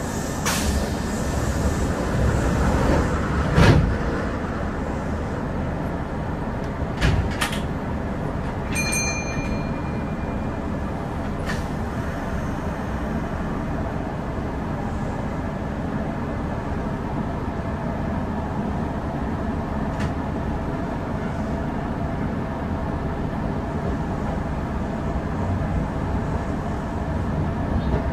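Kintetsu 8000 series electric train running at speed, a steady rumble of wheels and running gear heard from inside the car behind the cab, with scattered sharp knocks over the rails. A brief high ringing tone sounds about nine seconds in.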